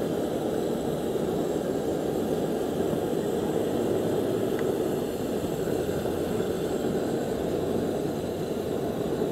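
Gas burner running with a steady low roar under a pot of boiling milk tea.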